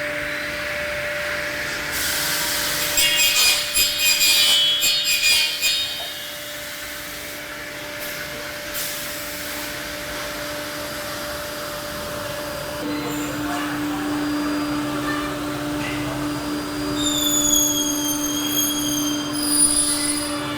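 Corner cleaning machine working on a welded plastic window frame, its cutters scraping the weld beads and burrs off the corners. A steady motor hum runs underneath, with a burst of scraping and cutting a couple of seconds in, and a high whine falling slightly in pitch near the end.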